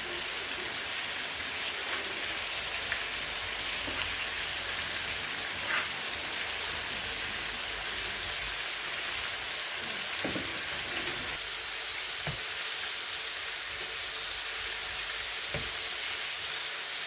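Chicken pieces frying in hot oil, a steady sizzle throughout, with a few faint clicks.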